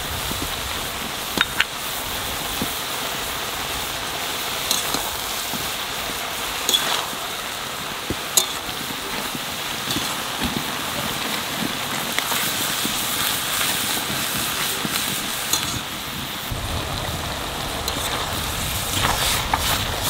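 Shredded cabbage frying in a steel wok over a wood fire: a steady sizzle with scattered clicks. A metal spatula stirs and scrapes the cabbage near the end.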